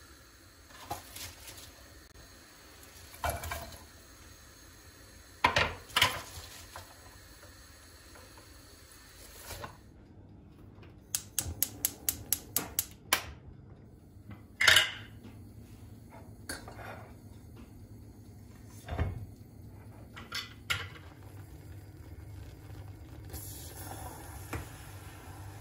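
Dishes and cutlery clinking and knocking in a kitchen: scattered separate knocks, a quick run of about ten light clicks a little before halfway, then one sharper clink, the loudest of them.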